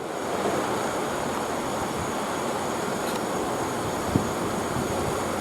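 Steady street traffic noise: an even wash of vehicle sound with no clear rhythm or single event.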